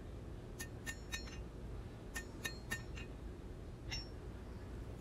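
Forging hammer striking hot steel on an anvil, drawing down the heel of a knife blade: two quick runs of about four blows each, then a single blow near the end, each with a short metallic ring.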